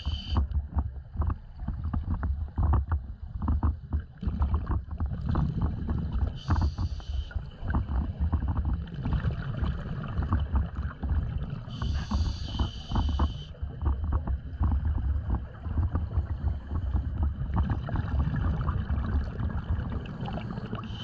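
Scuba diver breathing through a regulator, heard underwater through the camera housing: a hissing inhalation comes about every five to six seconds, over a steady low rumble and crackle of exhaled bubbles and water movement.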